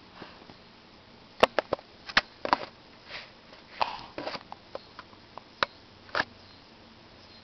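Baby sniffing and making wet mouth sounds right at the microphone. A quick run of sharp clicks comes about a second and a half in, then short breaths and scattered smaller clicks.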